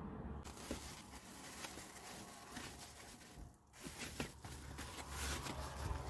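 Rustling and crinkling of a foil-backed reflective window blind, with light taps and clicks as it is pressed into place against a van's rear window.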